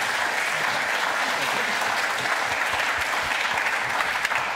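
Large audience applauding, many people clapping steadily.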